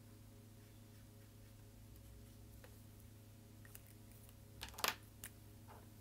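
A few sharp clicks and taps of markers being handled on a wooden table, bunched together about five seconds in, over a faint steady hum.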